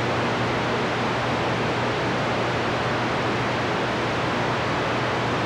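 Steady hiss of open-squelch static from a CB radio's speaker on an empty channel, with a faint low hum under it: band noise with no station coming through.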